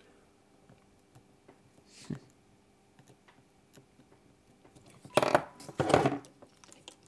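Faint clicks of soldering and small-parts handling on a workbench, then two short, louder clattering scrapes about five and six seconds in as tools are put down and the frame is handled.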